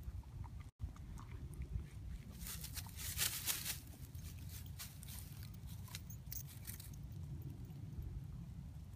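Weimaraner chewing on a wooden stick: scattered crunching and cracking, with a denser run of crunching about three seconds in.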